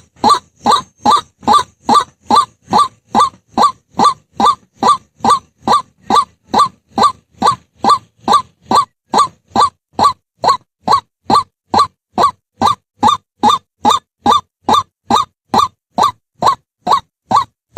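White-breasted waterhen calling: one short note repeated over and over at a steady pace, about two and a half notes a second.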